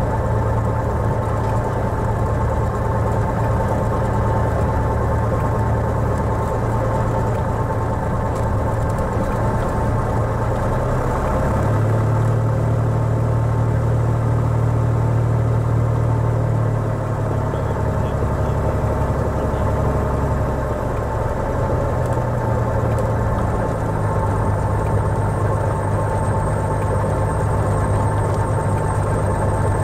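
Cessna 175 Skylark's piston engine running at low taxi power, heard from inside the cabin as a steady drone. Its low note shifts a few times, stronger about twelve seconds in and changing again around seventeen and twenty-three seconds.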